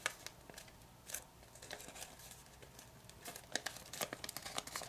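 Faint crinkling and crackling of a sheet of kami origami paper being folded and creased between the fingers, as scattered small crackles that come thicker in the second half.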